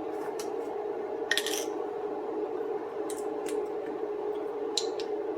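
A few light clinks and taps of kitchen utensils and dishes, the clearest a quick cluster about a second in, over a steady low hum.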